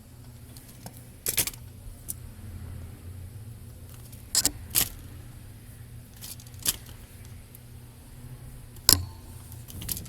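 A handful of light, sharp clicks and taps from small tools being handled on a workbench, spaced a second or more apart, over a steady low hum.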